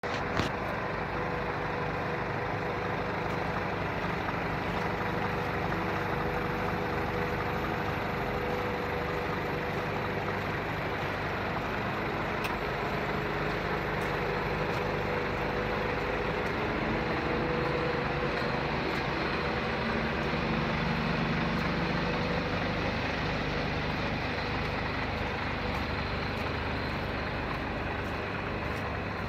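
Scania R470 truck's 12-litre inline-six diesel idling steadily, swelling slightly about two-thirds of the way through. A short click sounds near the start.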